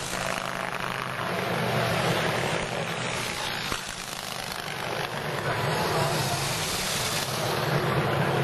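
Engine of an antique pre-1910 board-track racing motorcycle running at speed as it laps a dirt track. The sound eases about four seconds in and then swells again.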